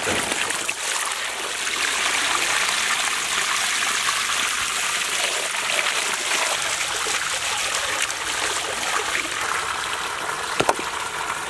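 Water gushing steadily from a wide pipe outlet and splashing onto a heap of raw mutton leg pieces, rinsing the meat.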